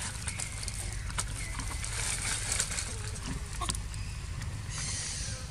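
Dry leaves crackling and rustling as macaques shift about on the leaf litter, as many short scattered clicks over steady outdoor background noise.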